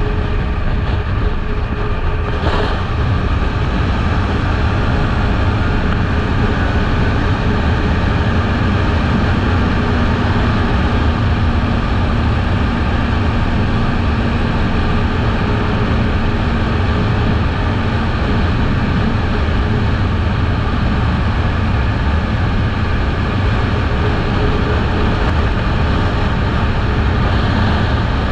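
Kawasaki Eliminator 500's parallel-twin engine running steadily while riding, under a heavy, even rush of wind noise. A brief click comes about two and a half seconds in.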